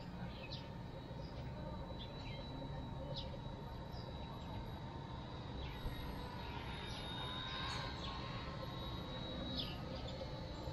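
Faint steady high whine of a small RC helicopter's electric motor and rotors in flight, over a low rumble of outdoor background noise, with short bird chirps now and then.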